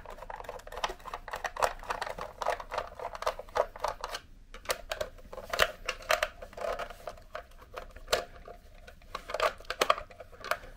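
Flathead screwdriver turning the deep-set screws in a Hoover Jovis Cyclean handheld vacuum's plastic casing: irregular small clicks and scrapes of the blade working in the screw heads against the plastic.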